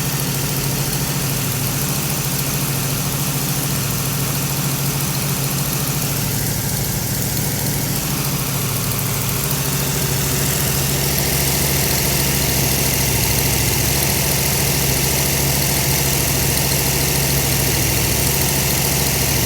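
1972 Chevrolet Camaro Z28's V8 engine idling steadily, getting a little louder about ten seconds in.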